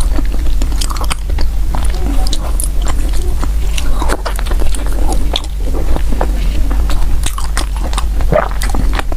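A person biting and chewing soft bread close to the microphone, with many small irregular wet mouth clicks and smacks over a steady low hum.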